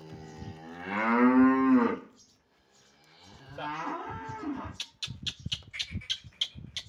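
Holstein-Friesian cattle mooing: one long, loud moo in the first two seconds, then a shorter, rougher second call. A run of sharp clicks and knocks follows near the end.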